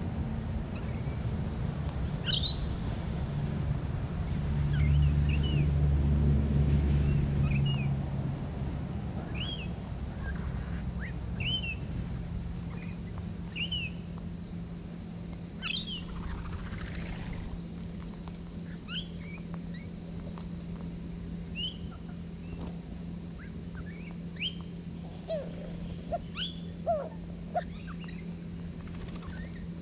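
Short, sharp chirps and calls from a mixed group of wild birds, scattered throughout, with a low drone that is loudest about four to eight seconds in and a steady high hum underneath.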